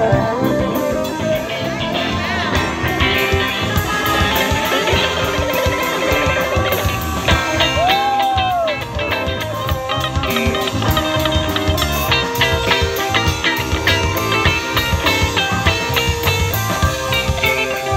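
Live band playing through a PA: electric guitars, keyboard and drum kit in a steady, driving groove.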